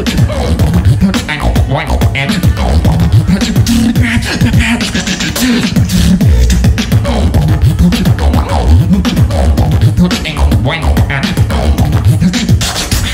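Solo beatboxing into a handheld microphone: a dense, fast rhythm of vocal kick, snare and hi-hat sounds with deep bass tones, heard through a PA.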